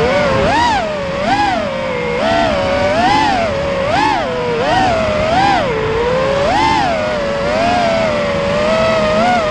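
FPV quadcopter motors whining, their pitch rising and falling sharply about once a second as the throttle is punched and eased.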